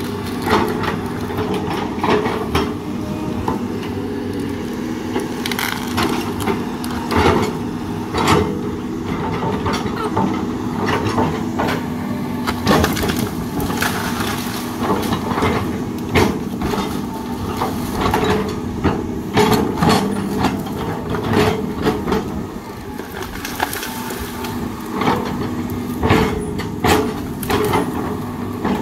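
CAT 320D hydraulic excavator's diesel engine running steadily under load while its bucket digs through soil, roots and brush. Frequent sharp cracks and snaps of breaking wood and knocks of the bucket are heard over the engine.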